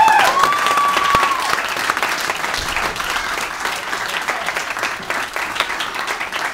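Crowd clapping and applauding, loudest at the start and slowly dying down, with one long high-pitched call held over the clapping in the first second and a half.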